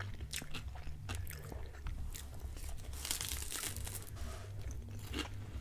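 Close-miked crunching and chewing of crisp, thinly rolled puff-pastry pizza crust, sharp crackles throughout, with a denser burst of crunching about three seconds in.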